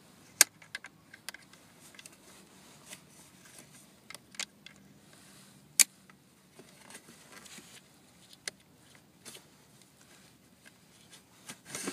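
Thin metal hook tool clicking and scraping in a slot of a Combi Coccoro car seat's plastic shell while a harness strap is fished through: scattered sharp clicks and taps, the loudest about half a second in and just before six seconds.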